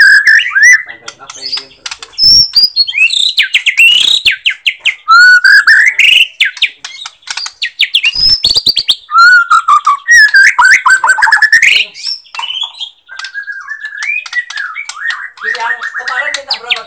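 Bornean white-rumped shama (murai batu borneo) in full song: loud, varied phrases of rich whistles, rising and falling glides and rapid trills, with sharp clicks between phrases.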